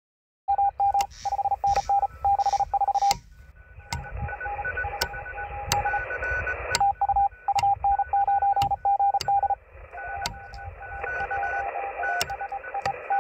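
Shortwave transceiver receiving the 15-metre amateur band: Morse code tones keyed on and off over a steady hiss of band noise, with sharp clicks about once a second. The hiss level drops and comes back a couple of times as the receiver is switched from one antenna to another.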